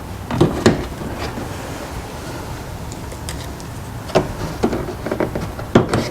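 Small hardware and parts being handled during a mud flap install: a few sharp clicks and knocks, two about half a second in and a cluster in the last two seconds.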